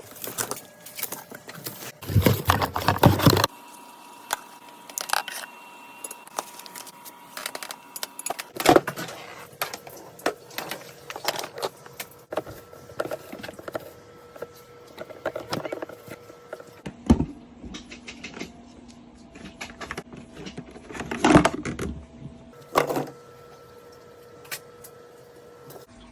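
Irregular clicks, rattles and knocks of hard objects being handled, with a louder, denser rustling clatter about two seconds in.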